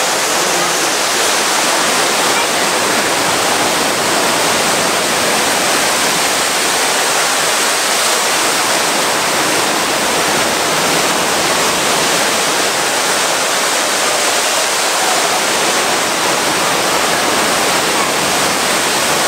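Steady rush and splash of a large column of water pouring from an opening in the ceiling into the pool below: the Rain Oculus, a man-made indoor water vortex rather than a fountain.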